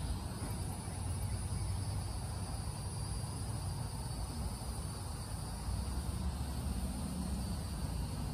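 Steady outdoor ambience: insects trilling continuously high up, over a low steady rumble.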